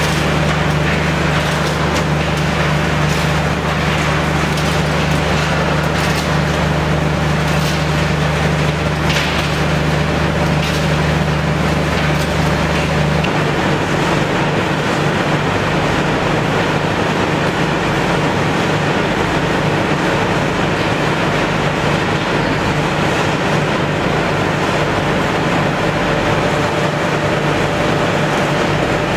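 Scrap metal recycling line running: the shredder and belt conveyors make a loud, steady machinery din with a deep hum and scattered rattling clicks, mostly in the first half. The deepest part of the hum drops away about 13 seconds in.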